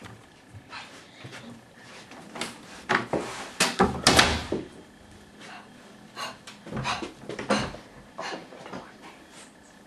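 An interior door being opened: a cluster of knocks and rustling about three to four seconds in, then scattered clicks and bumps.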